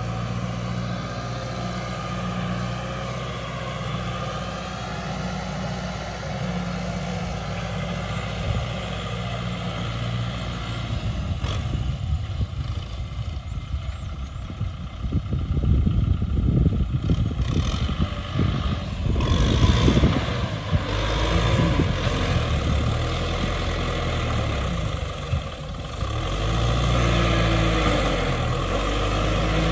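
Diesel engine of a Kubota M6040 tractor running steadily under load while it works the field with its front blade and rear disc plough. Midway it grows louder and rougher for several seconds, and towards the end its pitch rises and falls with the throttle.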